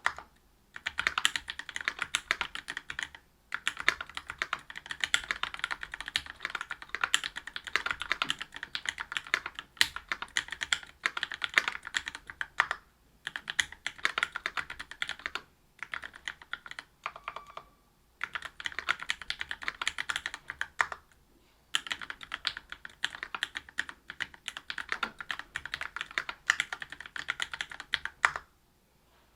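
Typing on a Whale 75 mechanical keyboard with stock Gateron Milky Red Pro linear switches (45 g), brass plate and GMK keycaps: fast keystroke clicks in bursts broken by short pauses, stopping shortly before the end.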